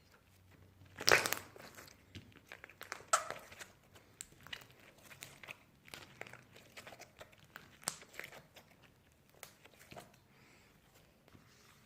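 Toys being handled up close: an irregular run of crinkling, crackling and clicking, loudest about a second in and again about three seconds in.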